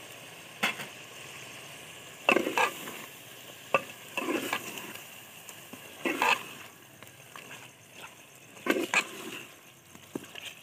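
Steel ladle stirring mutton curry in a metal pot, scraping and clinking against the sides every second or two, over the steady sizzle of the masala frying in oil. The sizzle fades after about seven seconds.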